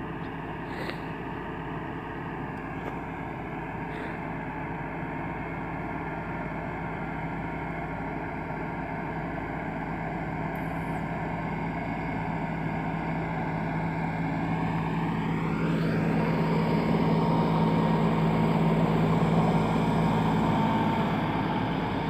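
Farm tractor's diesel engine running steadily as the tractor works through a flooded field. It grows louder as the tractor draws closer, loudest about three-quarters of the way through.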